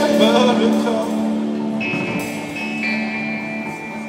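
Live band music on electric guitars, with a sung line in the first second or so. After it, long held guitar notes ring out over a steady low drone.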